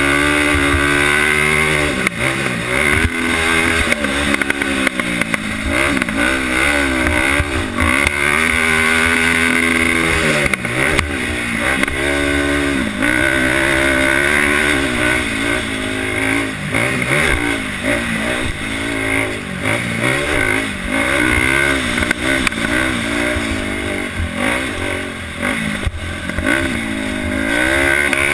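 2007 Polaris Outlaw 525 quad's single-cylinder four-stroke engine revving up and dropping off again and again as the throttle is worked through a lap of a motocross track. A few sharp knocks come through along the way.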